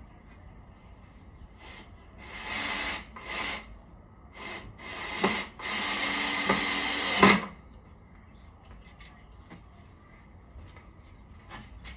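Scraping strokes in four bursts over about five seconds, with a few sharp knocks among them. The loudest knock comes as the last stroke cuts off, followed by faint small clicks of handling.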